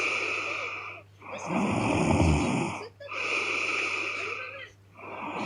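A young woman snoring heavily in her sleep. Low rattling snores, one about one and a half seconds in and another starting near the end, alternate with lighter breaths that have no rattle.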